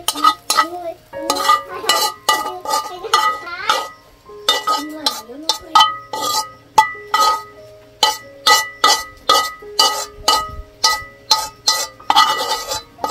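A metal utensil repeatedly clinking and scraping against metal cookware, about three strikes a second, each strike leaving a short ringing tone.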